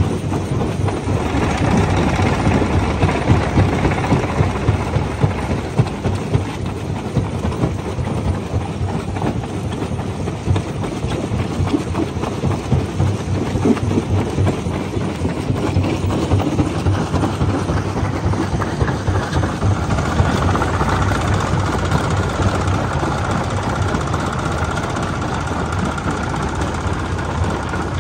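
Jaw crusher running and breaking rocks: a continuous heavy rumble packed with rapid cracks and knocks of stone being crushed.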